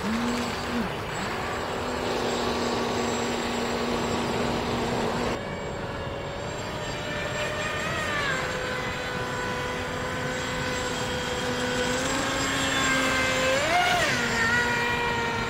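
Radio-controlled Sea-Doo RXP jet ski model's brushless motor and flex-shaft drive whining steadily at speed, over a hiss of water spray. The whine jumps to a different pitch about five seconds in, then dips briefly and later swings up and back down as the craft turns.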